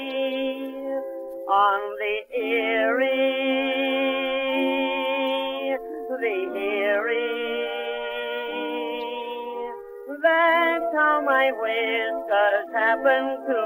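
Early acoustic gramophone recording of a male tenor singing with a small orchestra, the sound thin and without treble. Long held notes with a wide vibrato give way to quicker, choppier phrases near the end.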